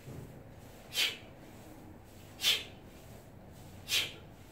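A man's breaths, three short ones about a second and a half apart, one with each rep of a hip-hinge drill with a dumbbell.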